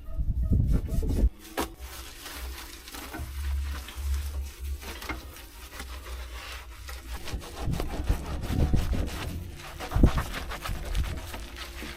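Hand scraping and scrubbing of caked dirt on the excavator cab's interior surfaces, in irregular rasping strokes with a few knocks, a louder knock about ten seconds in.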